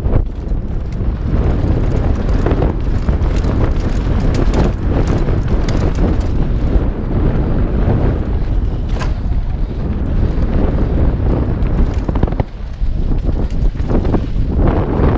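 Mountain bike descending a dirt trail at speed: wind buffeting the camera microphone over the rumble of tyres on dirt and rocks, with frequent rattles and knocks from the bike over bumps and a brief easing about three-quarters of the way through.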